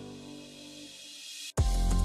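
Background music: soft held tones fade out, and about one and a half seconds in a new electronic track cuts in with a heavy bass beat and sharp percussion.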